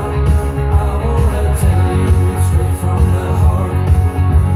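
Recorded music with singing, guitar and a heavy bass, played loud through a DJ's sound system.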